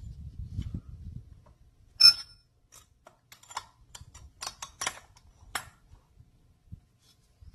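Metal-on-metal clinks as a two-stroke trimmer cylinder and its mounting screws are handled: one sharp, ringing clink about two seconds in, then a scattered run of smaller clicks and ticks. A low rustle of gloved hands handling the parts comes before.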